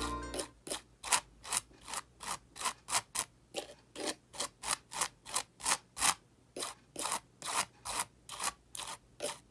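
Metal palette knife scraping Liquitex Ceramic Stucco texture gel across a canvas in short back-and-forth strokes, about two to three a second. Each stroke is a gritty rasp, just like sand.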